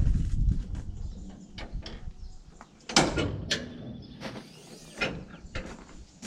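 Irregular metallic clicks and knocks of a grease gun being worked on a baler's grease nipples, with a louder clatter about three seconds in. A low rumble sits under the first second.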